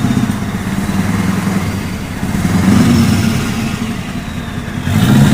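Scania V8 diesel truck engine running through a straight-through aftermarket exhaust, its note swelling as it is revved lightly about two and a half seconds in and again near the end.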